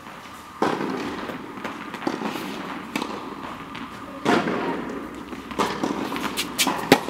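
Tennis ball being struck by racquets and bouncing on the court: a series of sharp pops a second or more apart, the loudest about half a second in and again about four seconds in.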